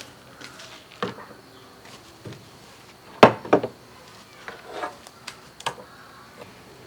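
Scattered knocks and clatters of cookware being handled, the loudest a sharp double knock about three seconds in.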